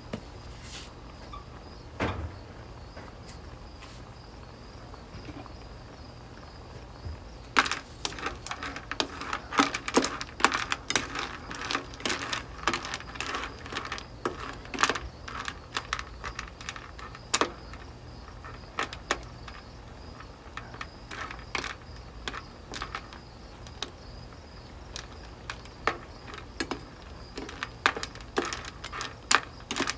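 A plastic spatula stirring shell-on seafood, sea snails among it, in a nonstick wok, giving irregular clattering clicks of shells against the pan and each other that start about eight seconds in. Under it runs a steady low hum and a faint high steady tone.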